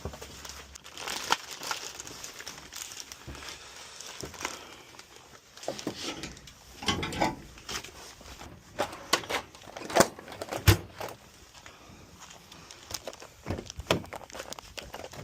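Handling noise of small objects: irregular clicks, taps and crinkling rustle, with a few sharper knocks around ten seconds in.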